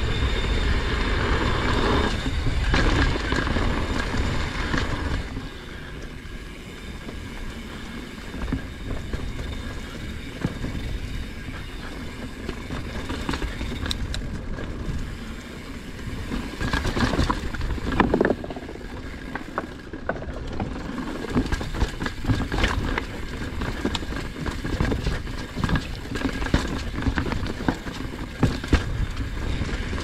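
Mountain bike riding down a dirt trail, heard from a camera mounted on the bike or rider. For the first five seconds or so there is loud wind rumble and tyre noise at speed. After that it is quieter tyre crunch over dirt, leaves and rocks, with frequent clatters and knocks from the bike as it rattles over rough ground.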